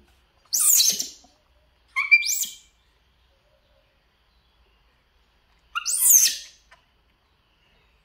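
Young macaques giving three high, bird-like chirping calls that slide up and down in pitch, each about half a second long, near the start, about two seconds in and about six seconds in: the monkeys begging for the smoothie being poured.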